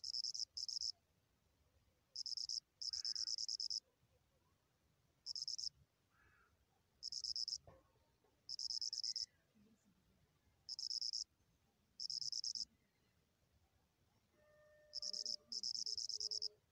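An insect trilling in short, high-pitched pulsing bursts, about ten of them, each under a second long, with a second or two of quiet between them.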